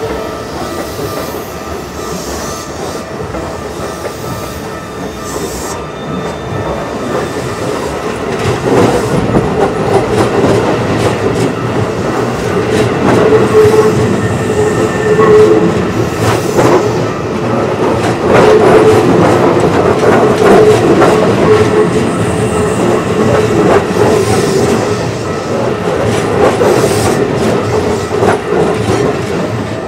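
Electric commuter train on the Keikyu line passing close by a level crossing: the wheels clatter over the rails, growing louder about eight seconds in and staying loud until near the end. Steady ringing tones from the crossing's warning signal sound behind it.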